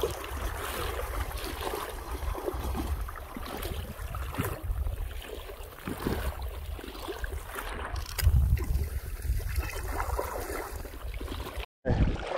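Wind buffeting the microphone over sea water sloshing and splashing in the shallows. The sound cuts out for a moment near the end.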